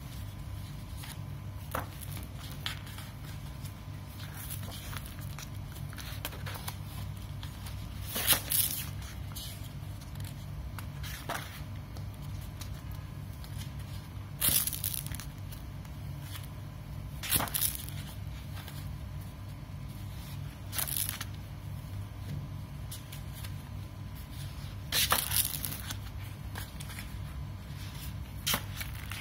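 Heavy pages of a wallpaper sample book being turned, each turn a short paper rustle, about five times, over a steady low hum.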